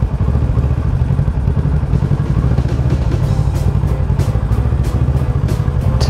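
Kawasaki Ninja 650 parallel-twin engine idling with a steady low rumble, under background music with a steady beat.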